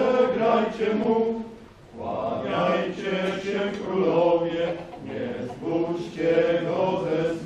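A group of voices singing together in a slow, chant-like way, with a short break about two seconds in.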